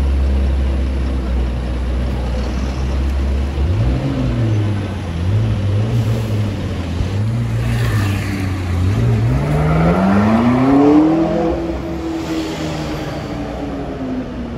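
McLaren 650S twin-turbo V8 idling low, then blipped a few times before it pulls away, the pitch climbing steeply as it accelerates and then easing off as it moves away.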